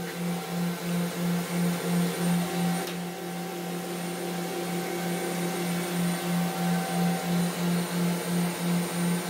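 Steady low machine hum that pulses about three times a second, with a fainter higher tone and a thin high whine over it.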